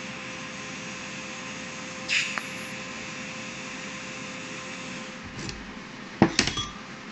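TIG welder arc buzzing steadily while tacking a steel suspension toe-arm tube, with a short crackle as the arc is struck again about two seconds in. The welding stops near the end, followed by a few sharp metal clanks as the tube is handled on the steel plate.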